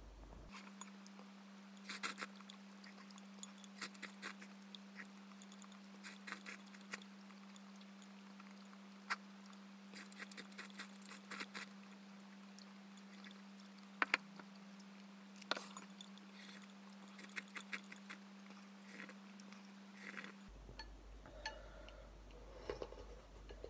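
Eating sounds played back four times faster: rapid sharp clicks of chopsticks against a ceramic ramen bowl and short slurps over a steady hum. About 20 seconds in, normal speed returns as soup is sipped from the tilted bowl.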